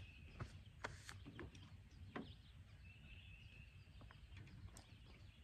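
Near silence: faint outdoor ambience with a low wind rumble, scattered small clicks and knocks, and a faint high buzzing note about three seconds in.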